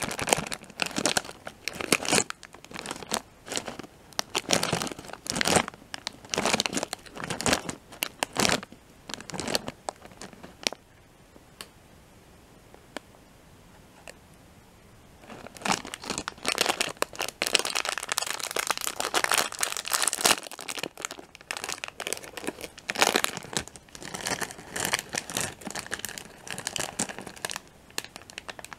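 Plastic-film packet of Peanut M&M's crinkled close to the microphone, then torn open, in irregular crackly bursts with a lull of a few seconds about halfway through.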